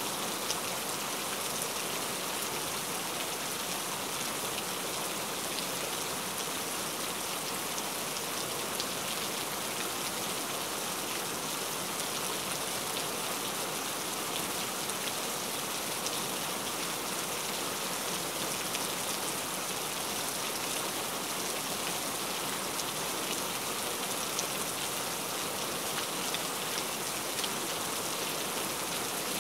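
Cauliflower (gobhi) kabab patties shallow-frying in hot oil in a pan: a steady sizzle with fine crackling.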